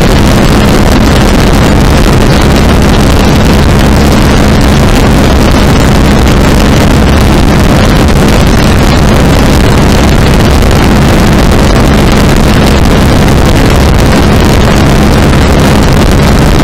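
Murray Kilowatt go-kart's engine running at a steady cruise while driving, with wind buffeting the helmet camera's microphone.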